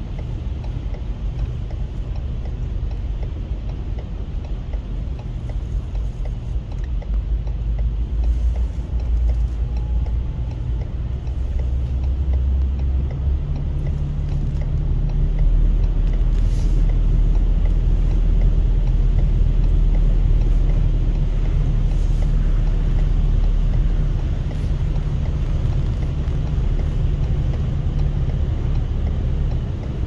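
A car wading slowly through deep floodwater, heard from inside the cabin: a steady low rumble of the engine with the wash of water against the car under it, growing a little louder in the middle.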